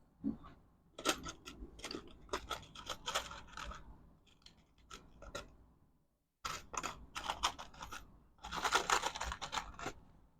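Clicks, snips and scraping of hand tools working on electrical wire, in quick irregular runs. The sound drops out completely for a moment a little past six seconds, then the work sounds resume.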